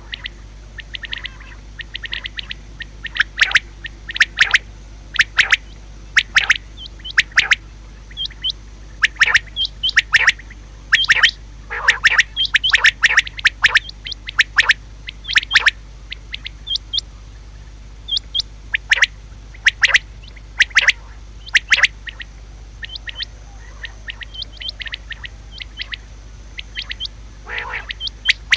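Female common quail calling: short, sharp notes repeated in irregular runs.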